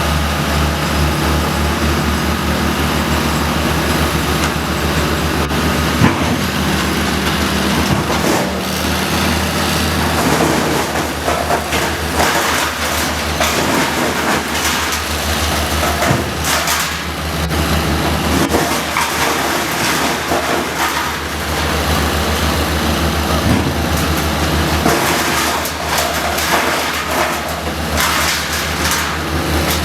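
Heavy tree-work machinery with a large engine running steadily, with irregular knocks and cracks heard over it.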